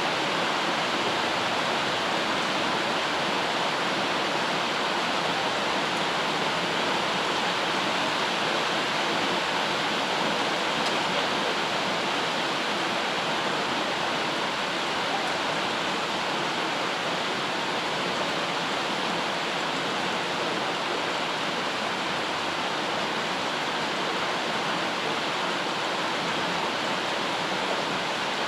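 Steady rain white noise: an even hiss with no separate drops, never rising or falling.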